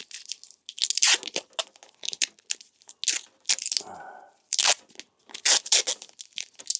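Tape being pulled off the roll and wrapped around a pair of cables, a string of short tearing, crackling pulls with brief pauses between them.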